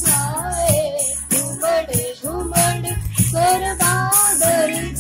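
Hindi rain song: a high singing voice draws out long, gliding, ornamented phrases with no clear words over a steady drum beat.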